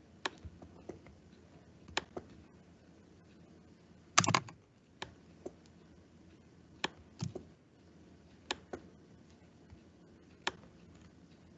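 Irregular clicks and key taps at a computer, a dozen or so spread out, with a louder quick cluster of several about four seconds in.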